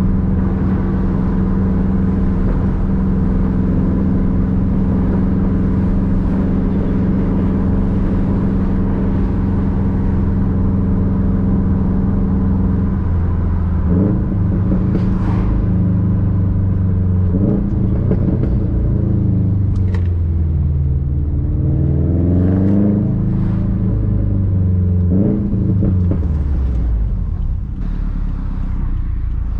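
Subaru WRX STI's turbocharged flat-four boxer engine with its rumble, fitted with an external wastegate. It runs steadily at first, then from about halfway through revs up and down several times, its pitch rising and falling as it accelerates.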